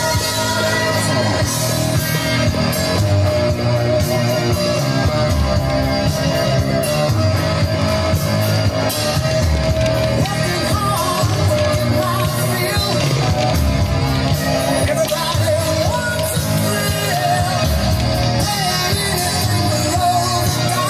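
Rock music with a singing voice, playing steadily throughout.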